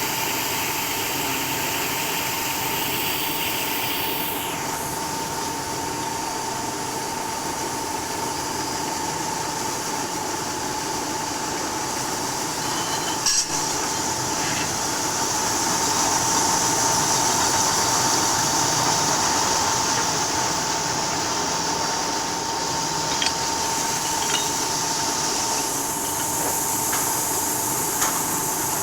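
Glass bottle washing machine running: a steady machine hum with a constant whine and a hissing spray, broken by a few sharp clicks.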